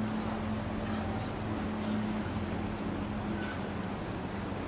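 Motorboat engine running at a steady pitch, a constant hum over a rushing wash of noise.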